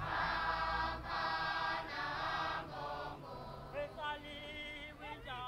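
A group of voices chanting together in three short phrases, typical of Zulu isishameni ingoma singing. After a brief pause, a single voice sings on its own.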